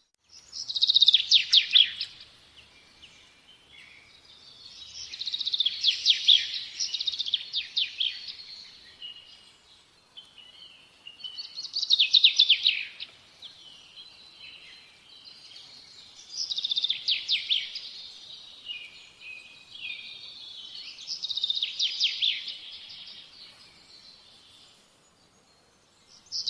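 A songbird singing: loud phrases of rapid trills and twitters about every four to five seconds, with softer chirping between them.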